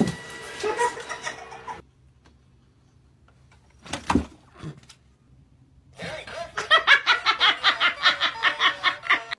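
A person laughing hard in quick, even bursts, about five a second, over the last three seconds. A brief thump about four seconds in.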